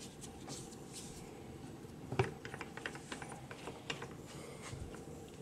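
Faint clicks and ticks of a bar clamp's threaded screw being turned by hand, with one sharper click about two seconds in and a quick run of small clicks after it.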